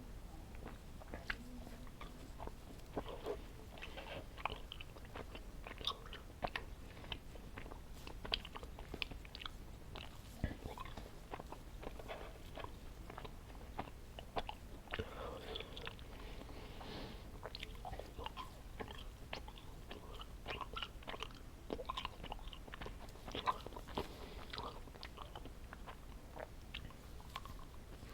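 A person chewing chewy candy close to the microphone, with many irregular wet mouth clicks and smacks.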